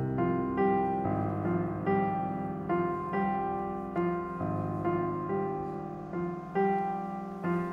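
Background music: a slow piano piece, notes struck and left to fade.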